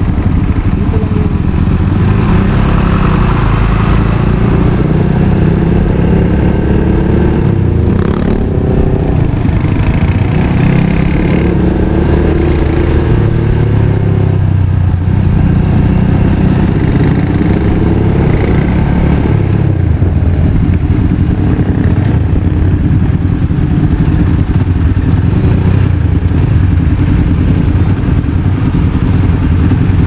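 Motorcycle engine running under way, its pitch rising and falling several times as the rider accelerates and eases off, over a steady low rumble.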